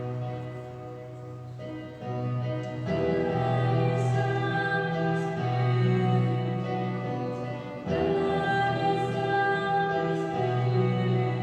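Slow sacred choral music: voices singing over long held instrumental chords, the bass note changing every second or two.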